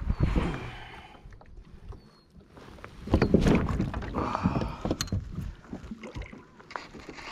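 A kayak moving on the water: splashing and swishing that swell near the start and again about three seconds in, with a few sharp knocks.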